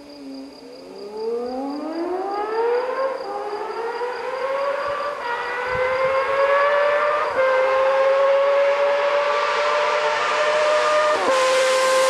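Honda CBX 1000's air-cooled inline six-cylinder engine accelerating hard toward the listener, its pitch climbing through the gears with shifts about three, five and seven seconds in, then held high and steady, growing steadily louder as it closes in.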